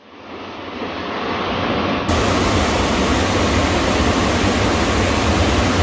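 Steady rushing of river water, an even noise with a deep low rumble, fading in over the first two seconds and then holding constant.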